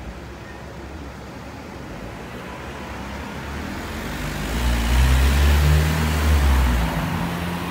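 Street traffic: a motor vehicle's engine and tyres grow louder as it passes close by, loudest about five to six seconds in, then easing off.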